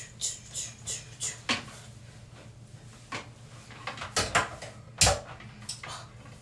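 Small objects being handled and set down on a hard surface: a scattered run of light clicks and knocks with a louder knock about five seconds in, over a steady low hum.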